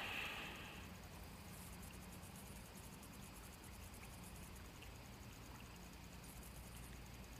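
Faint, high-pitched pulsing of insects, such as crickets, over a low steady wash of river ambience, with a short noise right at the start.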